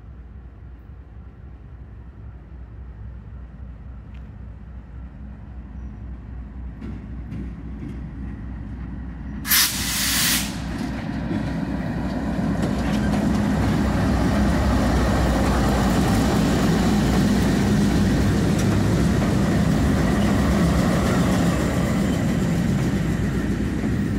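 A diesel freight train led by a BNSF GE Dash 9 locomotive approaching and passing close by. Its engine rumble grows from faint to a loud, steady drone, with wheels running on the rails. About ten seconds in, a loud hiss lasts about a second.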